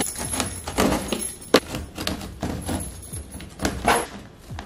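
Strong packing tape being cut and pulled off a cardboard shipping box, with irregular scrapes, crinkles and clicks of the cardboard and one sharper snap about a second and a half in.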